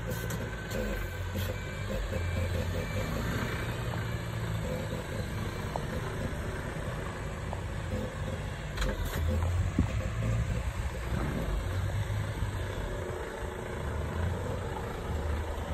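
Snowmobile engine running with a steady low drone that swells and eases a little.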